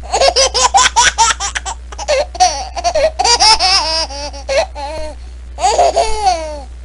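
High-pitched laughter: a rapid run of short "ha" bursts, then longer drawn-out laughs that rise and fall in pitch, over a low steady hum.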